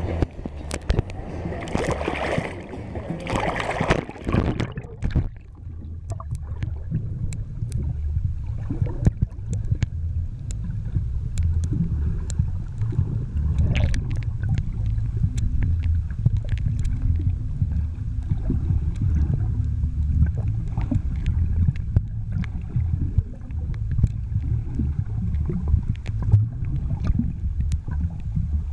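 Low, fluttering rumble of a motorboat underway, with wind buffeting the microphone, over a steady wash of water. A louder rush of higher noise fills the first few seconds, then settles.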